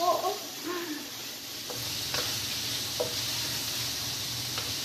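Food sizzling in a hot wok as a wooden spatula stirs it, with a few light clicks of the spatula against the pan. The sizzle grows louder about two seconds in.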